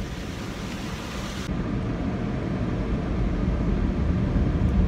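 Automatic car-wash machinery running, heard from inside the car: a steady rushing noise with a deep rumble that grows louder.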